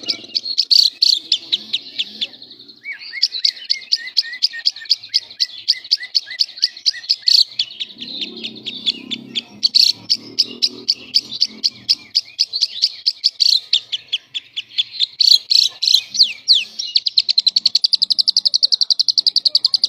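Lovebird singing a long, unbroken string of rapid, shrill chirps, the semi-konslet chatter of a bird in full song, turning into a fast, even trill near the end.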